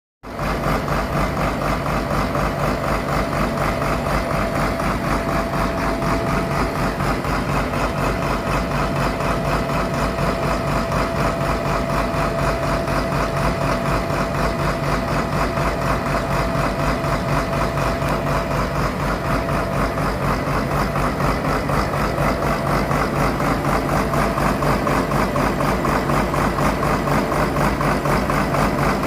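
Massey Ferguson 7415 tractor's diesel engine running steadily at a constant speed, an even rumble that holds unchanged, with a thin steady whine over it for much of the time.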